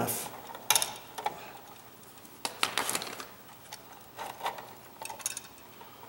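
Screwdriver prying open the bare copper ground wire's loop on a light switch's ground screw: scattered small metallic clicks and scrapes, in a quick cluster about two and a half to three seconds in.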